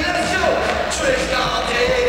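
Live arena concert music: amplified male vocals over a loud backing track with a steady deep bass, heard from high up in the stands.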